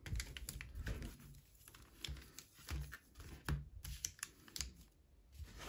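Irregular light clicks and taps with some soft rustling: booster packs and cards being handled and set down on a table.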